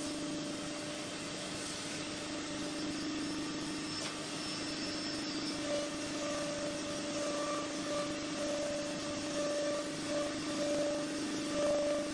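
UA48 tool-change CNC woodworking router running, its spindle and dust extraction giving a steady whine over a hiss. From about six seconds in, a higher tone comes and goes in short pulses as the cutter works through the panel.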